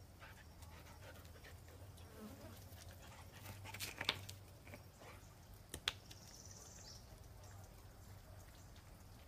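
A dog panting faintly over a low steady hum, with two sharp taps about four and six seconds in.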